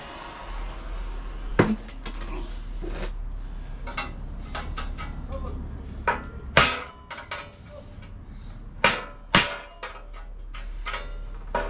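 Hammer blows on a sheet-steel repair panel as a lip is shaped into it: about nine sharp metallic strikes at irregular intervals, a few of them much louder than the rest, over a steady low rumble.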